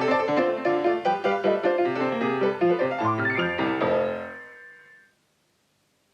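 Background music led by a piano or electric keyboard, playing rapid notes, then fading out about four seconds in to near silence.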